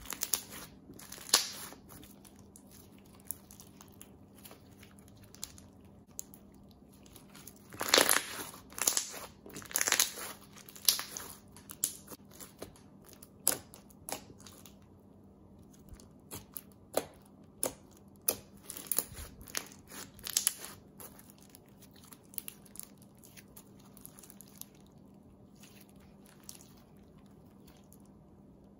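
Clear green glitter slime with small beads being squeezed, poked and stretched by hand, giving sticky crackles and pops in scattered clusters, busiest about a third of the way in.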